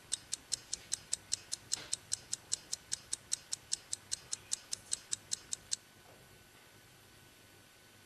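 Clock ticking fast and evenly, about five ticks a second, then stopping suddenly near the end: a countdown timer sound effect running out the final seconds.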